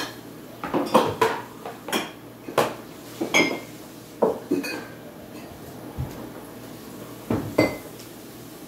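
Dishes and drinking glasses clattering and clinking as they are taken out of a kitchen cupboard and set down on the counter: about ten separate knocks, some ringing briefly, with a quieter gap a little past the middle.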